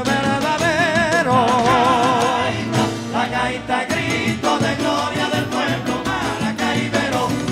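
Gaita zuliana played live by a full band, with a sung note held and wavering with vibrato through the first couple of seconds, then the band carrying on between verses.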